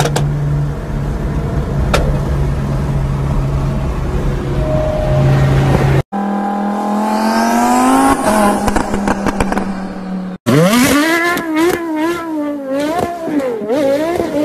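Sports car engines in three quick clips. First a steady engine drone at highway speed. Then a Lamborghini Huracán's V10 accelerating, its pitch rising, and finally a car's engine revved up and down over and over as it slides through loose sand.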